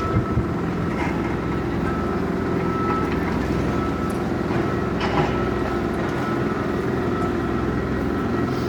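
Steady, loud drone of heavy machinery running, with a thin high whine held over it and a few faint clicks.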